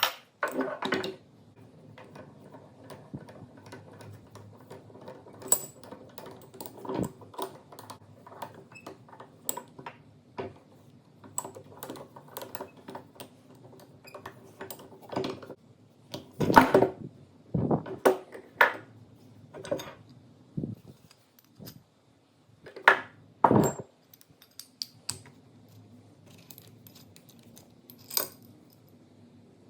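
Metal tools and vise parts clinking and knocking as they are handled, scattered irregular taps with a few louder clanks a little past the middle and again about three-quarters of the way through, over a low steady shop hum.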